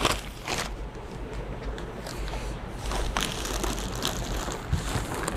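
Packaging being handled as a shipping box of fish is opened: scattered short rustles, crackles and knocks over a steady low hum.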